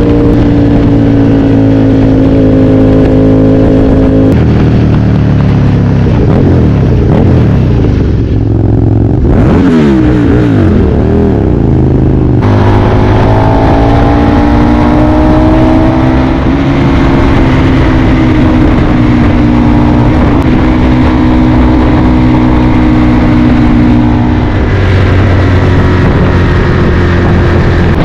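Aprilia Tuono 1000R's V-twin engine while riding. It runs at a steady pitch, drops and wavers as the bike slows in the middle, then picks up about halfway through and runs steadily again.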